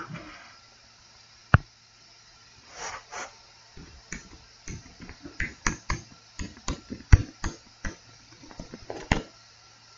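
A stylus tapping and clicking on a tablet screen while handwriting on a digital whiteboard: one sharp click about a second and a half in, then a run of short, irregular light taps from about four seconds in to near the end, over a faint steady hum.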